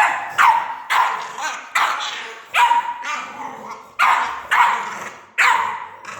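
Black pit bull puppy barking repeatedly: about seven sharp, high barks at uneven intervals, each fading quickly.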